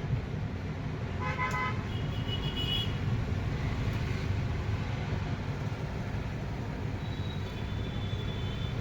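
Street traffic: a steady low rumble with vehicle horns tooting over it, a short horn about a second in, a higher-pitched toot around two to three seconds, and another high toot near the end.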